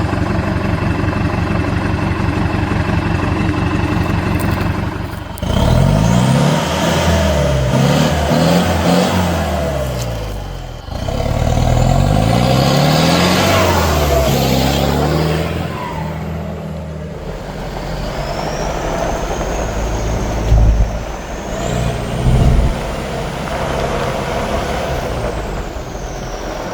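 A 1997 Ford F-1000's MWM X10 diesel engine, loud through a straight-through stainless exhaust with a diffuser tip. It idles at first, then is revved hard over and over for about ten seconds, the pitch repeatedly climbing and falling. It then settles back near idle with a couple of short blips of the throttle.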